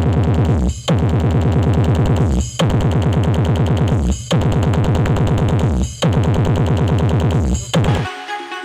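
Electronic bass-heavy battle track played loud through a mobile mini sound system: fast pulsing beats over falling bass sweeps, repeated in phrases about a second and a half long with short breaks between. Near the end it cuts off into a quieter, different tune.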